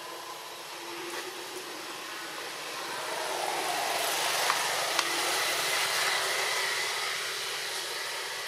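A vehicle passing by: an even hiss that builds over a few seconds, peaks about halfway through and fades. Two short clicks come near the middle.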